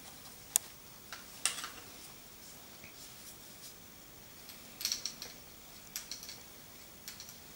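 A few sharp little clicks and brief scrapes from a small metal foot-care instrument being worked at the toes, scattered irregularly, with a short cluster about five seconds in.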